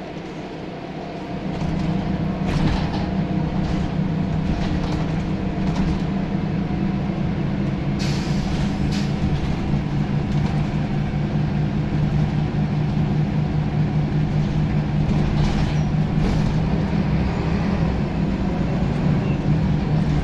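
Scania L94UB Wright Solar single-deck bus's 9-litre diesel engine, heard inside the cabin at the back, pulling hard under acceleration: the note builds about a second and a half in and then holds as a loud, steady drone, with a brief burst of noise about eight seconds in.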